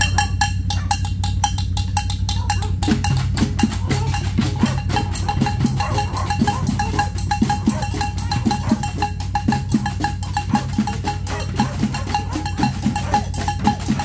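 Homemade tin band: pots and tin cans beaten with sticks in a fast, dense marching rhythm, which fills out with lower strikes about three seconds in. A steady low hum runs underneath.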